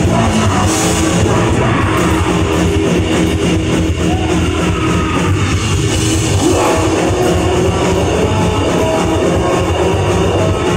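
Live rock band playing loudly, with electric guitar and drum kit.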